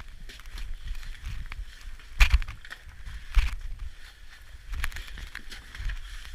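Irregular knocks and crunches, with a few sharper knocks standing out a little after two seconds and again past three seconds.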